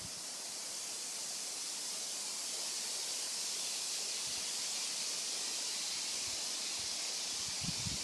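Leaves of the forest trees rustling in the wind: a steady, even hiss that swells slightly and holds, with a few soft low thumps near the end.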